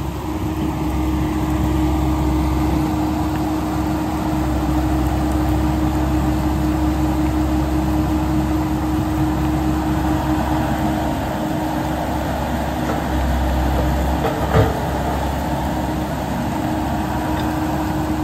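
Hydraulic excavator's diesel engine running steadily under load as it digs, with a constant hum. There is a single sharp knock about three-quarters of the way through.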